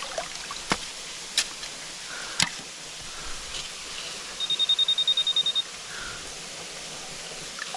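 Handheld metal-detecting pinpointer beeping rapidly, about a dozen short high beeps in just over a second, signalling metal right at its tip. Three sharp knocks come in the first few seconds, over the steady rush of creek water.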